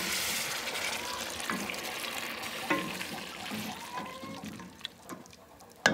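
Water poured into a hot stainless pot of browned chicken and root vegetables: a loud hiss of sizzling and splashing that slowly dies away over about four seconds as the pot settles. A wooden spoon stirs through the liquid, with a sharp click near the end.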